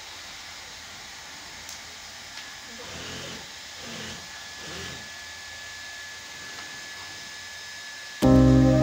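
Steady hiss of a hot-air tarpaulin welding machine's blower as it runs along a PVC seam, with faint voices. Loud music cuts in suddenly near the end.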